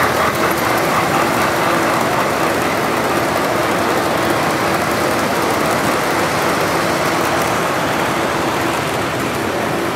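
Three-rail toy train, a steam locomotive pulling freight cars, running along its metal track, set against the steady din of a busy exhibition hall.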